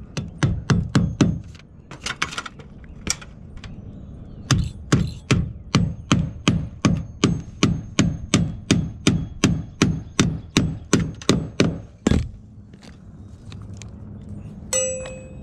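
A rapid, even run of sharp strikes from roofing work, about three a second for several seconds, after a short cluster of strikes at the start.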